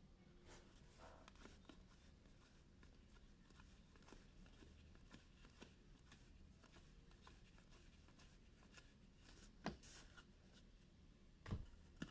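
Quiet, faint rustling and light clicks of trading cards being handled and flipped through, with a sharper click and a brief rustle near the end and louder knocks at the very end.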